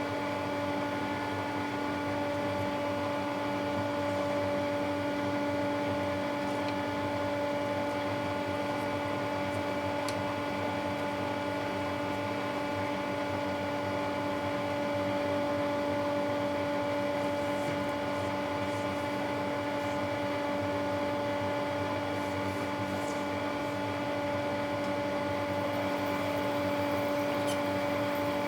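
An electric machine running steadily, a constant hum with a low drone and its overtones, unchanging in pitch and level.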